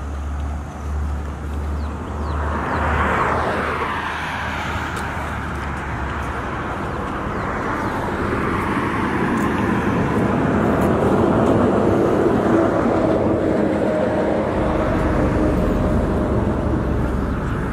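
Road traffic going by: a vehicle passes about three seconds in, then the traffic noise builds louder through the middle with a steady engine hum.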